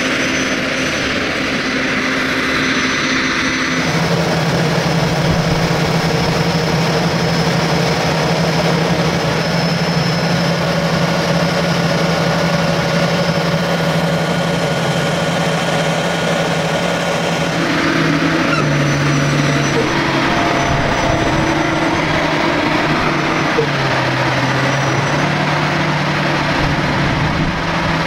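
Diesel engines of heavy farm machinery running steadily under load, with a low drone that shifts pitch in steps, once about four seconds in and several times in the second half.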